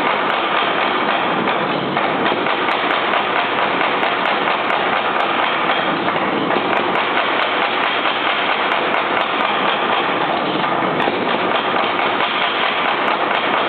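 Little Giant mechanical power hammer running and striking hot steel, a steady, continuous mechanical din with no pause.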